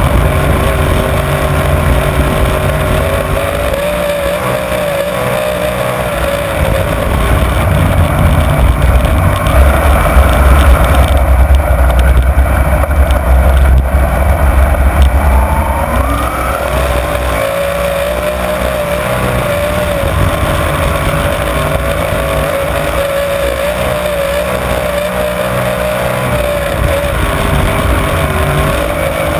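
Winged dirt-track sprint car's engine running hard at racing speed, heard from on board. The engine note wavers up and down, gets louder for several seconds about a third of the way in, then rises in pitch again as the car powers out.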